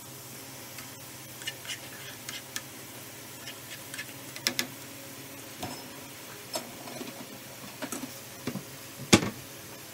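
Minced garlic sizzling in oil in a small nonstick frying pan, with a steady hiss and sharp clicks and scrapes of a metal spoon stirring against the pan. The loudest clink comes near the end.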